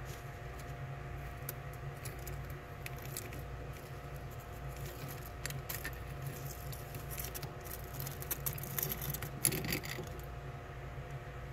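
Hermit crab clambering over dry leaves and shells: scattered small clicks and scrapes of shell on shell and leaf, with a louder burst of clattering about nine seconds in, over a steady low hum.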